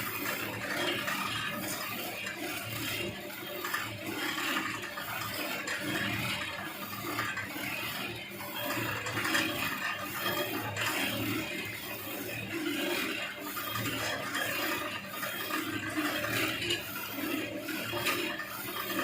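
Continuous rustling and scraping of chopped silage fodder being worked in a silage baling machine, over the steady hum of its electric motor.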